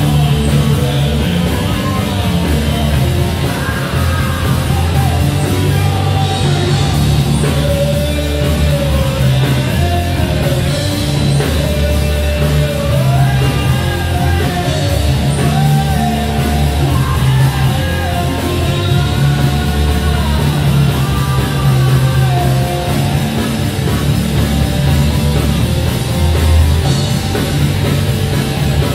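Live rock band playing loud, with electric guitar and drums, continuous through the whole stretch.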